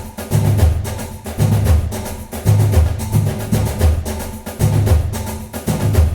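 Background music with a steady percussive beat and heavy bass pulses.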